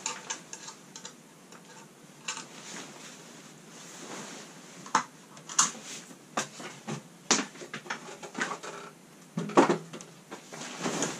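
Tent fabric rustling with scattered clicks and knocks as the tent is hung on wall hooks from a wooden stepladder, and a louder clatter near the end as the stepladder is taken hold of and moved.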